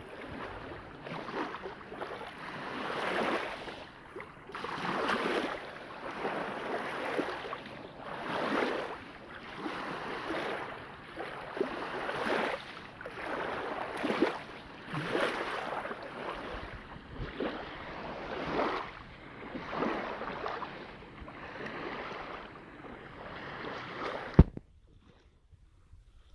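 Small waves lapping on a sandy shore, washing in and out in swells every second or two. Near the end a single sharp click, after which the sound drops away almost to nothing.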